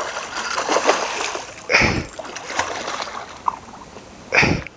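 A hooked yellowtail thrashing at the surface beside the boat: water sloshing, with two sharp splashes, one about two seconds in and one near the end.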